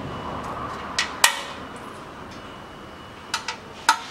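Sharp clicks and clinks as magnets are set back into their seats in a washed Aisin 09D automatic transmission oil pan: two about a second in, and three more near the end.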